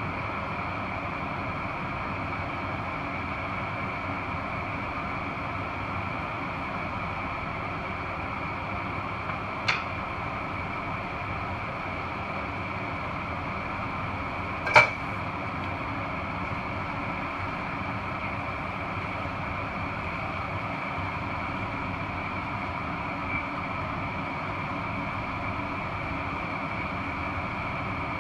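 Cream sauce with bacon and mushrooms simmering in a skillet: a steady hiss and bubbling, with two short clinks about ten and fifteen seconds in, the second louder.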